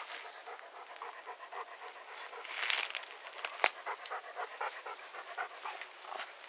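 A dog panting quickly, about four short breaths a second, close by. A single sharp click cuts through a little past the middle.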